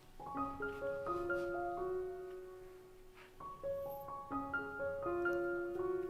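Background piano music: a light melody of short notes played in runs, with a brief lull about three seconds in.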